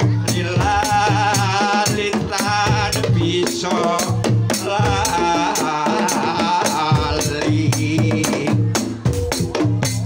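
Javanese gamelan playing a tayub piece: steady drum and struck keyed-instrument strokes under gong tones. A sinden sings a wavering, ornamented vocal line over it from about half a second in until about seven seconds in.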